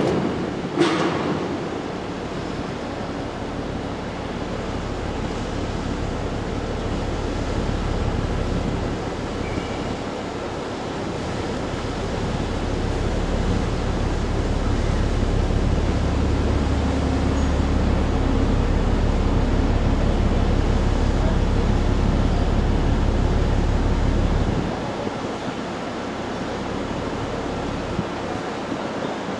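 Wind blowing across the microphone over a steady wash of harbour water. A deep rumble builds underneath and stops abruptly about 25 seconds in, and there is a brief click about a second in.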